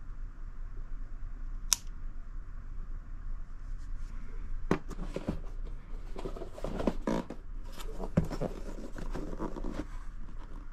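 Hands handling a small Kimber pistol and then a cardboard handgun box. There is one sharp click about two seconds in. Through the second half come a run of knocks and cardboard scraping and rustling.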